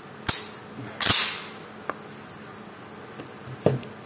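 Derya Carina CMX-100 shotgun firing 32 g slugs: two sharp reports less than a second apart, the second louder with a short echoing tail. A light click follows, then a heavier clunk near the end as the gun is handled.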